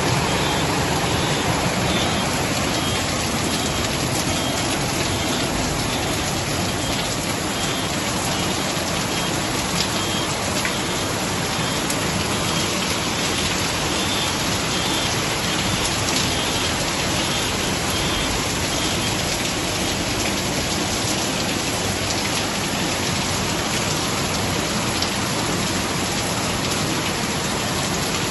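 Heavy rain falling steadily, mixed with the rush of floodwater pouring down a flooded street.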